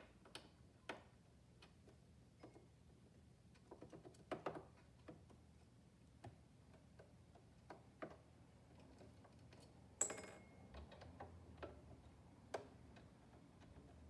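Faint, scattered clicks and taps of a small screwdriver and metal parts being handled at the needle area of a Janome 2212 sewing machine, with one louder short rattle about ten seconds in.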